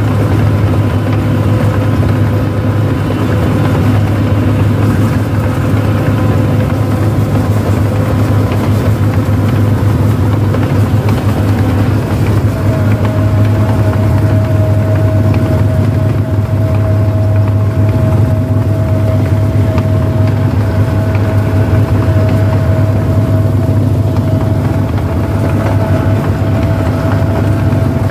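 Rice combine harvester's diesel engine running steadily as the machine travels along a dirt track, a loud low hum with a steady higher whine that comes in about halfway through.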